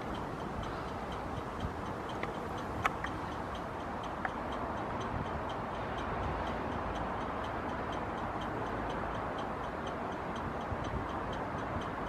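Electro-mechanical railway cab signal code generator relay ticking evenly about three times a second (180 pulses per minute, the PRR code for a Clear cab signal), faint over a steady background hiss.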